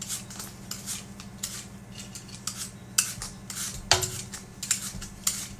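An apple being peeled by hand with a small blade: short, irregular scraping strokes as the peel is cut away, with a sharper knock about four seconds in. A steady low hum runs underneath.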